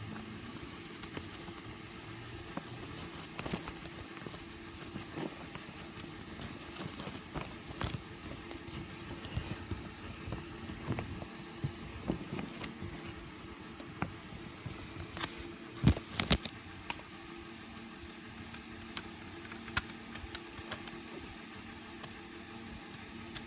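A CD and its packaging being handled: scattered sharp clicks and taps, with a quick run of louder clicks about sixteen seconds in, over a steady low hum.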